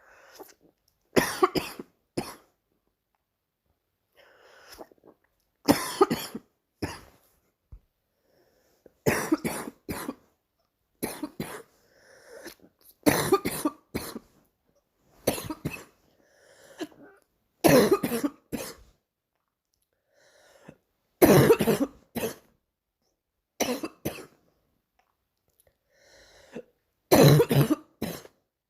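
A girl's barking morning cough: about ten fits, each a quick run of two or three loud coughs, coming every two to four seconds.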